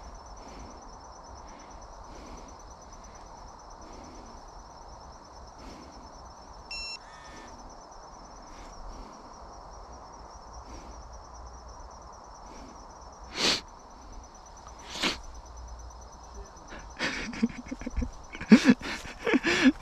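A steady high-pitched insect trill over faint outdoor hiss, with one short high chirp partway through. Near the end come several sharp rustles and steps on grass and leaves.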